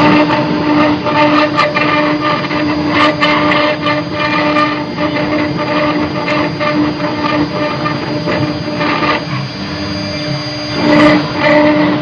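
Stone CNC engraving router at work: the spindle runs with a steady high whine while the cutter grinds through stone with a rough, uneven scraping and crackling. It gets louder about a second before the end.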